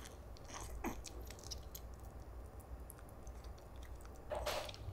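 Small Pomeranian chewing and nibbling a treat from a person's fingers: soft, scattered crunchy clicks, with one brief louder noise near the end.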